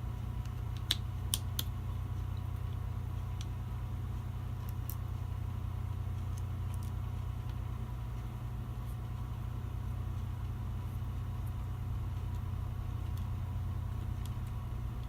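Steady low mechanical hum with a faint steady whine above it. Over it come a few small sharp clicks and taps, the loudest three about a second in, from small gun parts and tools being handled.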